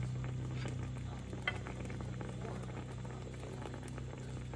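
Chicken cutlets bubbling and sizzling in a skillet of pan sauce with capers, a dense steady crackle of small pops over a low steady hum. One sharper click about one and a half seconds in.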